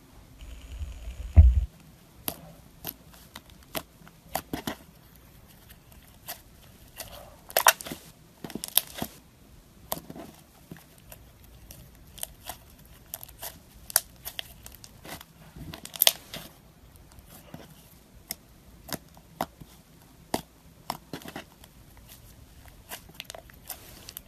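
Blue and lavender slime squeezed and kneaded by hand, giving irregular sharp pops, clicks and crackles. A low thud about a second in is the loudest sound.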